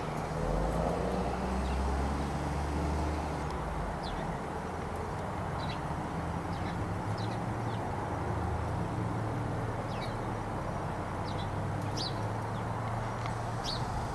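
A motor vehicle's engine running, a rise in pitch about half a second in and loudest over the first few seconds, then a steady lower hum. Short high bird chirps come and go throughout.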